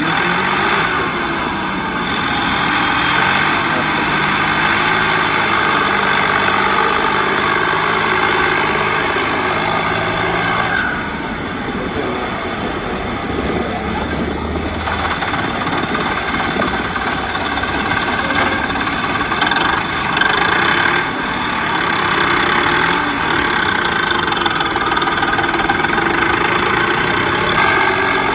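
Heavy vehicle engine running steadily, easing off a little about eleven seconds in.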